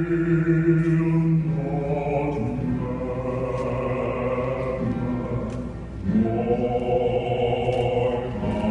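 Choir singing a hymn in long held chords that change every second or two, with a short break about six seconds in before the next chord.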